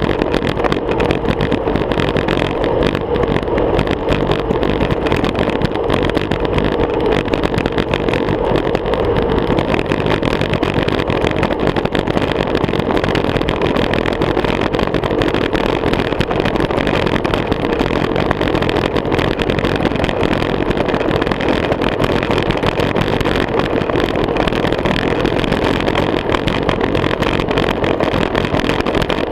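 Steady wind buffeting and road noise on a GoPro camera mounted low on a moving road bicycle.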